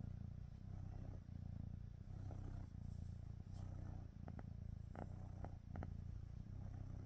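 Kitten purring steadily and close up, with a few faint clicks between about four and six seconds in.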